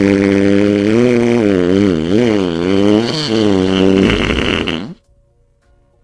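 One long, drawn-out fart with a steady pitch that then wobbles up and down before it stops about five seconds in.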